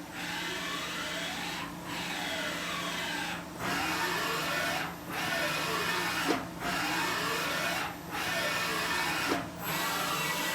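Samsung MCV-50 vertical machining center's axis servo drives making repeated rapid back-and-forth moves in a backlash and repeatability test program: a motor whine that rises and falls in pitch with each move, broken by short pauses about every one and a half seconds.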